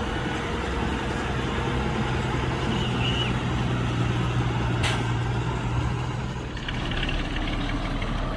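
Heavy construction machine's diesel engine running with a steady low hum, easing off a little about six and a half seconds in. A single sharp click sounds near the five-second mark.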